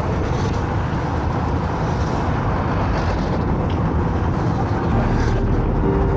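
Steady road noise of a car on the move: engine and tyre rumble. About five seconds in, the low rumble becomes more even and a faint steady hum joins it.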